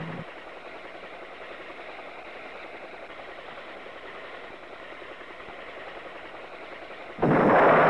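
Steady, even noise of a helicopter in flight, with no distinct beat. About seven seconds in, a much louder blast of noise cuts in suddenly.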